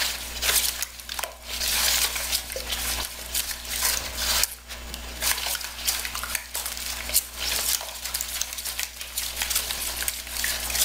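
Spatula stirring eggs, sugar and milk in a plastic mixing bowl: quick, irregular scraping and tapping against the bowl as the liquid batter is mixed.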